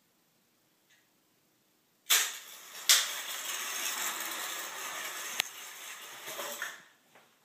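Mousetrap car set off on a hardwood floor: a sudden loud snap about two seconds in, then several seconds of rattling and rustling with two more sharp clicks, mixed with handling noise from the camera following it.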